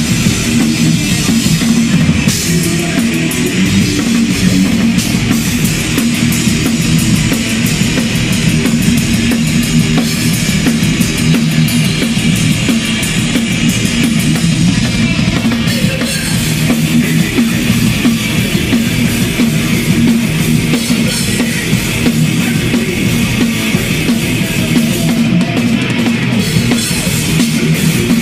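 Thrash metal played loud and without a break: a drum kit hit hard and fast, with cymbal strikes, under distorted electric guitars.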